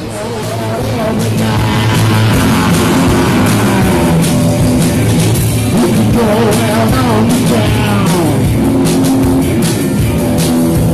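A live rock band playing, with electric guitars and a sung vocal. The music swells louder over the first two seconds and then holds steady.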